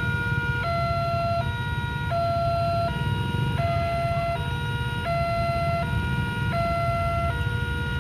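Railway level-crossing warning siren sounding two alternating tones, switching about every 0.7 seconds, over the low rumble of vehicle engines idling at the closed crossing.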